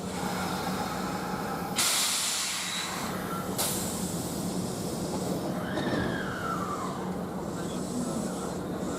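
Kintetsu limited express electric train at the station, humming steadily, with two sudden hisses of compressed air about two seconds apart, followed by a whine sliding down in pitch about six seconds in.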